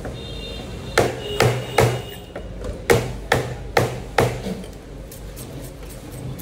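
A large fish-cutting knife chopping through a pomfret on a wooden log chopping block: seven sharp whacks, a run of three and then a run of four, each under half a second apart.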